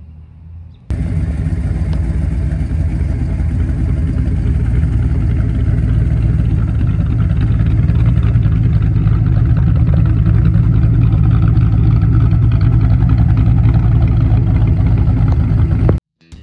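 Rebuilt Ford 5.0 V8 in a 1989 Mustang, with a Comp Cams XE270HR-12 camshaft, running steadily at idle through its exhaust. The loud steady running cuts in about a second in and stops abruptly near the end.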